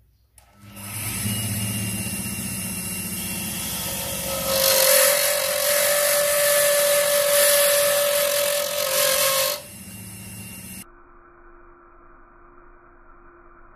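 Wood lathe running with two pen blanks on a mandrel. From about four and a half seconds in, a turning tool cuts the spinning wood, adding a loud hiss and a steady tone until nearly ten seconds in. After that the sound drops back, and about eleven seconds in it falls to a faint, dull hum.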